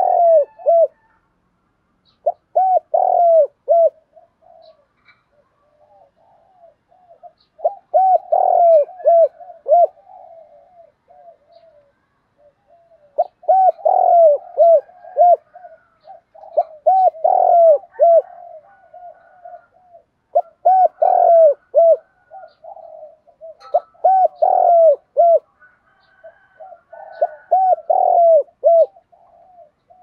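Spotted dove cooing in repeated phrases of short, quick coos, a new phrase every few seconds. This is the excited 'kích bổi' calling that keepers play to stir caged males to coo.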